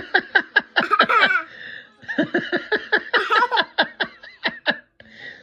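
Laughter in two runs of quick, repeated 'ha-ha' pulses, several a second, with a short pause about two seconds in.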